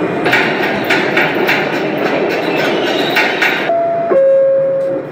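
New York City subway car running, with a steady rumble and regular rattling clacks from the wheels and car body. Near the end this gives way to two steady tones, the second one lower.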